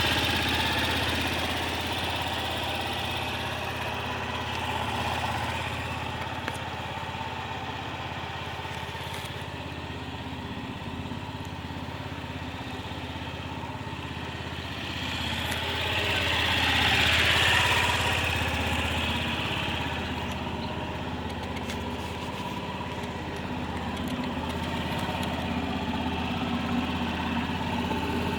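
Honda Gyro Canopy four-stroke scooter engine running steadily at idle, swelling louder once about two-thirds of the way through.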